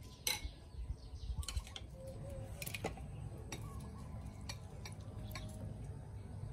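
Spoons and fingers clicking and tapping on ceramic bowls and plates as people eat: scattered light clicks, more in the first three seconds, over a low steady rumble.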